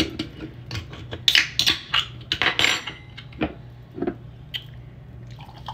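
A can of sparkling water and a stemmed wine glass being handled on a countertop: a series of separate clicks, clinks and knocks.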